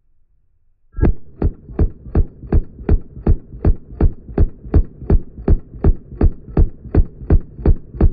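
AK-12 rifle firing a long full-auto burst, with the audio slowed down: a steady train of deep, booming shots, nearly three a second, starting about a second in.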